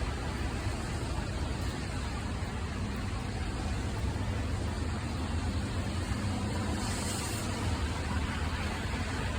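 Steady rainfall, an even, unbroken hiss with a heavy low undertone.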